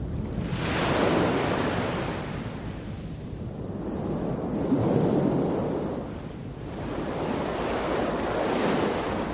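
Sea surf breaking on a sandy beach, the wash of the waves swelling and fading three times.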